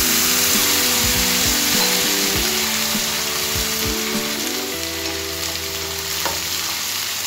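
Water hitting hot oil in a pan of sprouted mung beans, sizzling hard and then settling to a softer sizzle after a few seconds, while a wooden spatula stirs the beans with a few soft knocks. A quiet tune plays underneath.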